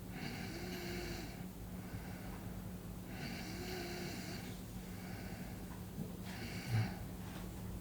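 A sleeping person snoring softly, three breaths about three seconds apart, over a steady low hum. Near the end there is one short, louder low sound.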